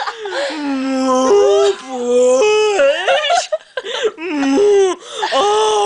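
A girl's voice making a string of long, held wailing cries that jump up and down in pitch, imitating an animal in labour, likened to a demented dying cow giving birth. The cries break briefly about three and a half seconds in.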